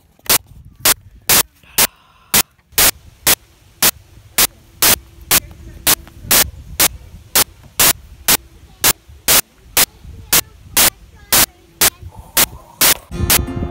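Loud, sharp static clicks repeating about twice a second over a low rumble and hiss: a digital recording glitch. Music comes in near the end.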